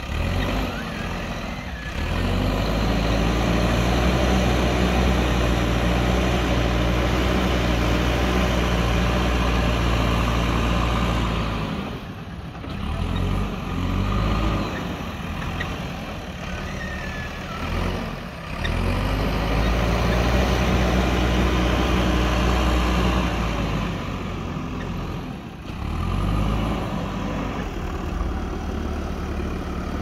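JCB backhoe loader's diesel engine working under load as the loader bucket pushes soil. It holds a high, steady note for several seconds at a time and drops back lower in between.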